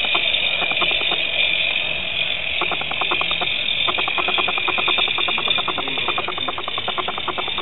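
Scratchbuilt live-steam Davidson bush loco running on a garden-scale track: a steady hiss with a quick, even chuffing beat of about nine a second. The beat drops out for a moment about a second in and returns strongly near the middle.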